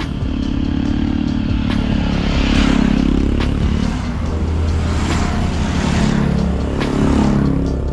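A motor vehicle engine running, its pitch rising and falling a few times.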